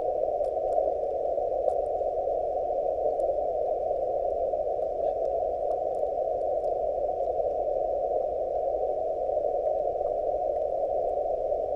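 Yaesu FTX-1F transceiver's receiver noise on the 20 m band, a steady hiss held in a narrow pitch band as through a CW filter, with no Morse signals. A few faint ticks sound over it.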